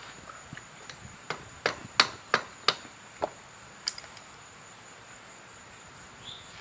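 Hand tools knocking, about eight sharp, irregular strikes within a couple of seconds, the loudest about two seconds in, then stopping.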